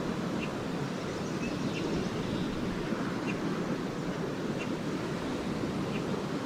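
Lake surf washing steadily on a beach, with wind on the microphone. Short, faint high chirps of swallows come through about once a second.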